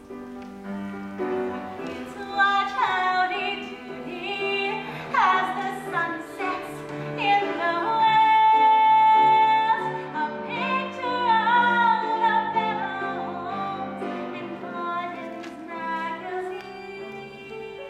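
A woman sings a slow musical-theatre ballad over instrumental accompaniment, her voice wavering with vibrato and holding one long high note about halfway through.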